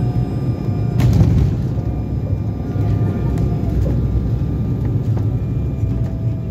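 Low, steady rumble of a car on the move, with one sharp knock about a second in and faint music underneath.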